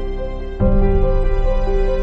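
Soft background music of sustained chords; about half a second in, a deeper bass chord comes in and the music gets louder.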